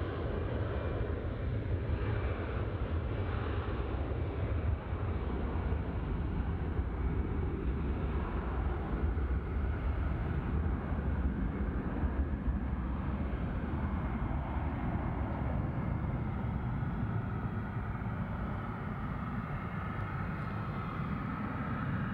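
Gulfstream business jet's twin rear-mounted turbofan engines at takeoff power through the takeoff roll and lift-off, a steady low noise with a faint whine near the end.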